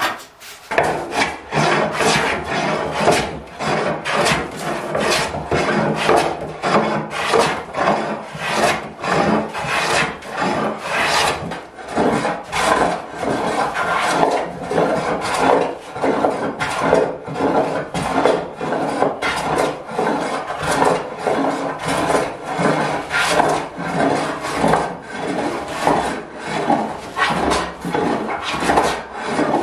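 Hand plane shaving the face of an oak slab: quick, repeated rasping strokes of the blade cutting across the wood, about two a second, after a short pause at the start.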